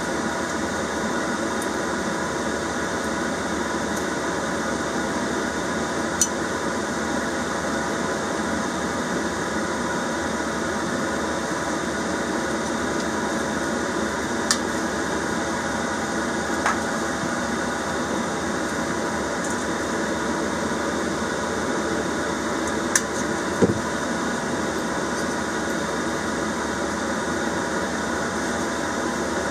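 A steady hiss with a faint hum runs throughout. A few light clicks and taps come from the aluminium diesel-heater housing and its small parts being handled.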